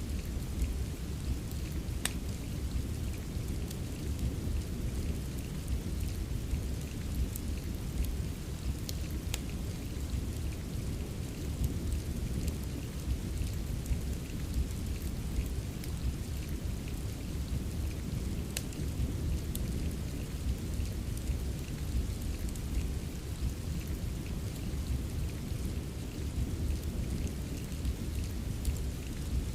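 Steady rain ambience with a deep, even wash of noise weighted toward the low end, mixed with a fireplace whose occasional sharp crackles and pops stand out a few times.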